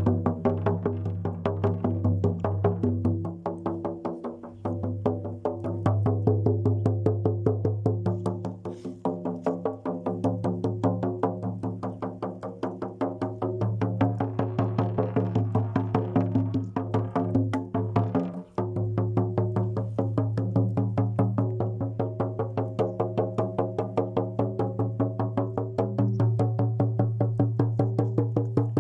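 Music: a steady low drone with many overtones over a fast, even clicking beat.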